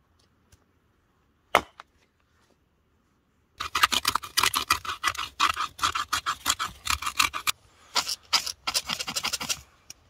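Knife blade scraping rapidly down a split of firewood, several strokes a second, shaving off fine curls for tinder. The scraping starts about three and a half seconds in. Earlier there is a single sharp knock.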